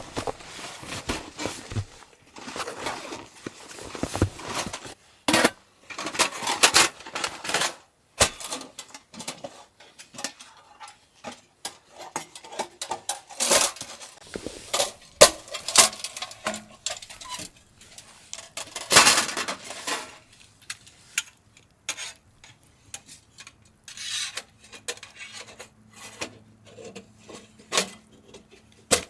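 Irregular clinks and knocks of objects being handled, like cookware, with a few louder clatters. A faint low hum comes in near the end.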